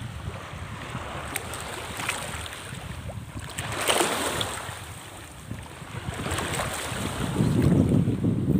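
Wind buffeting the microphone over sea water, with a splash of water about four seconds in and heavier low wind rumble near the end.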